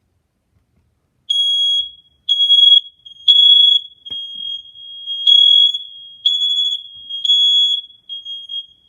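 Ionization smoke alarm's piezo sounder going off under a held test button, starting about a second in: loud, shrill, high-pitched beeps about once a second. From about four seconds on, a fainter steady alarm tone fills the gaps between the beeps, from the other smoke alarms in the house also sounding.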